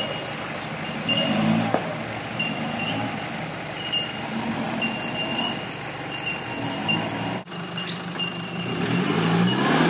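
Four-wheel-drive diesel engine running at low revs as the vehicle crawls over a rutted dirt track. After a short break about seven and a half seconds in, the Toyota Hilux's 3.0 turbo-diesel engine note rises near the end as it works down the rut.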